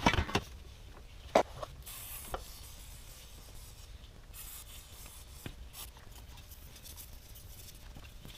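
Gloved hands handling parts around an engine's oil filter housing: rubbing and scraping, a clatter at the start and a sharp knock about a second and a half in. Two short high hisses from an aerosol cleaner can, about two seconds in and again between four and five seconds.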